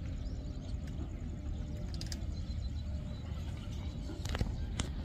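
Wind buffeting the microphone as a steady low rumble, with two faint clicks near the end.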